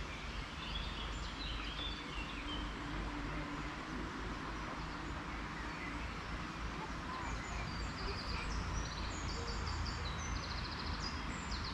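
Songbirds singing over a steady hiss of outdoor background noise: a few chirps in the first couple of seconds, then quick repeated trilled phrases from about seven seconds on.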